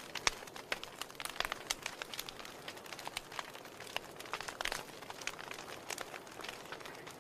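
Wood logs burning in a fireplace, crackling: frequent sharp irregular pops and snaps over a soft steady hiss of flame.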